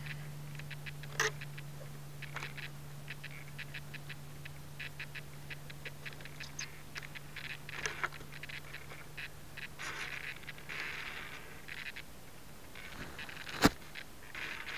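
Handling noise on a model airplane's nose-mounted camera: scattered clicks and rustling, with a low steady hum that stops about twelve seconds in. A single sharp knock near the end, the loudest sound, as the plane is set down on the grass.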